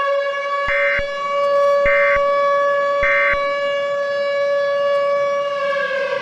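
A steady, buzzy siren-like alarm tone is held throughout and cuts off abruptly at the end. Over it come three short squawks of Emergency Alert System digital data about a second apart, the end-of-message code that closes the alert.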